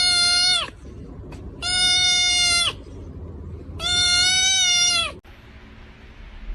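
An animal giving three long, steady, high cries, each a little over a second long and evenly spaced. The sound then cuts off abruptly about five seconds in.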